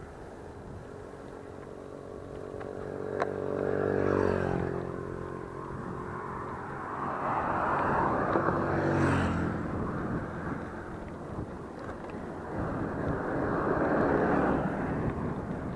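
Motor traffic going past on the road: an engine note that drops in pitch as it passes about four seconds in, then more vehicles passing around eight seconds and again near the end, over steady road and wind noise.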